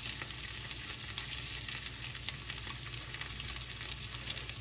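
Tater tots frying in rendered pancetta fat in a pan: a steady sizzle with many small pops.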